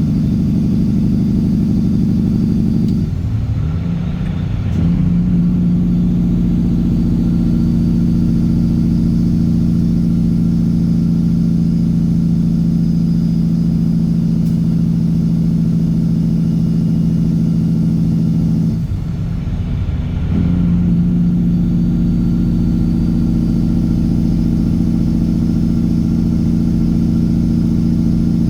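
Straight-piped Caterpillar C15 ACERT inline-six diesel in a semi truck running under steady load, a loud, deep exhaust drone. It drops off briefly twice, about three seconds in and again near nineteen seconds, then comes back at a new pitch, as when the driver shifts gears.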